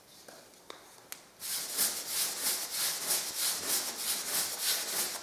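Paintbrush brushing diluted PVA onto a sanded wall as a sealing coat, in quick back-and-forth strokes: a rhythmic swishing of about three strokes a second that starts about a second and a half in. Before it come a few light clicks.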